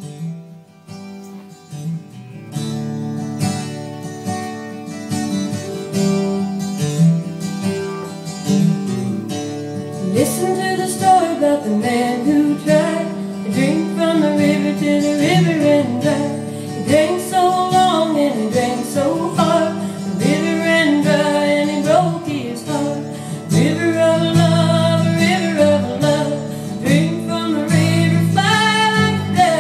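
Recorded song played back from a Teac A-3440 reel-to-reel tape over speakers: guitar, with a singing voice coming in about ten seconds in.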